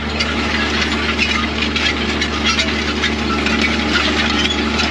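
Steel discs of a tractor-drawn disk harrow scraping and clinking on stones in the soil: a dense, constant rattle of small metallic ticks over the steady running of the tractor engine, heard with the cab window open.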